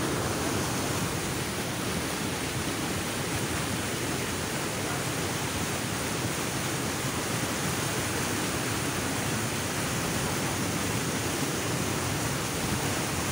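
Water rushing and churning along the side of a moving boat: a steady, even rush with no breaks.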